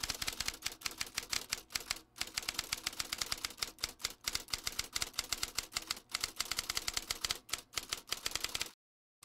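Typewriter keystrokes clacking in a quick, fairly even run of about eight strokes a second, with a couple of short breaks. It stops briefly just before the end.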